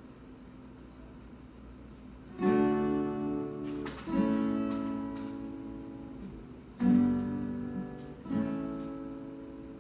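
Acoustic guitar: four strummed chords, each left to ring out and fade, the first about two and a half seconds in.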